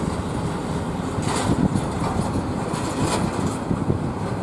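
Jet engines of a Boeing 767 airliner rumbling steadily as it rolls out on the runway after landing, with two brief hissy surges about a second and three seconds in, partly wind buffeting the microphone.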